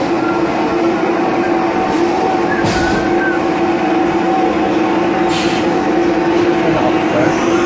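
XYZ 560HD CNC vertical machining centre roughing aluminium at high speed with WNT Circle Line DLC-coated end mills: a loud, steady cutting tone over spindle and machine noise. Two short bursts of hiss come about three seconds apart.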